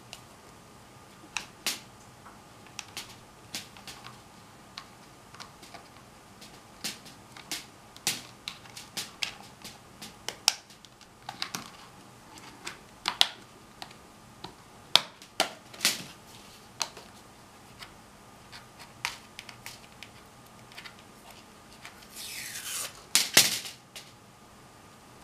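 Plastic parts of a white UV mosquito racket's handle clicking and snapping as they are fitted and pressed together by hand: many sharp, irregular clicks. Near the end comes a longer scraping rustle followed by a few loud clicks.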